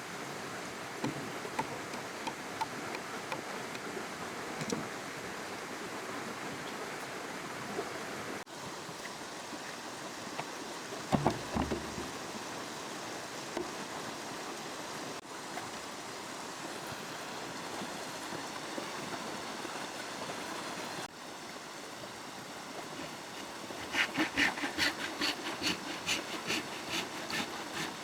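Steady rush of river water with scattered small knocks and a louder pair of knocks about eleven seconds in. Near the end, rapid back-and-forth strokes of a saw cutting wood begin.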